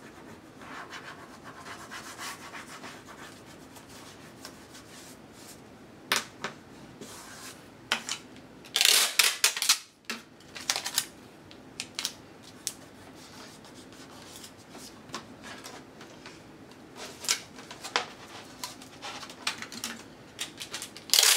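Hands rubbing and burnishing tape down onto plastic drawing film over a woodblock, with scattered clicks and taps. About nine seconds in, a strip of tape is pulled from a tape dispenser with a loud rip lasting about a second, and another loud rip comes near the end.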